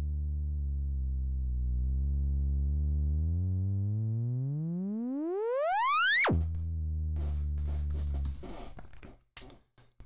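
Logic Pro X Alchemy synth playing a pitched saw-wave riser: a low buzzy tone that climbs slowly, then sweeps steeply up in pitch and brightens as its low-pass filter opens, and drops off suddenly about six seconds in. The low tone starts again for about two seconds and stops, followed by a few faint clicks.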